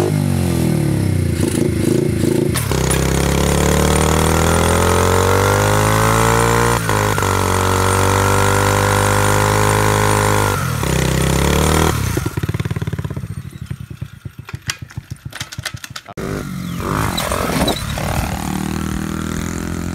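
Small Honda mini dirt bike engine revving. The pitch climbs a few seconds in, holds high for several seconds, dips briefly and climbs again. After about twelve seconds the sound drops and turns choppy and uneven as the bike rides off.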